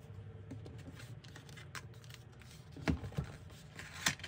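Album packaging being handled by hand during unboxing: faint rustling with a few light clicks and taps, the sharpest about three and four seconds in.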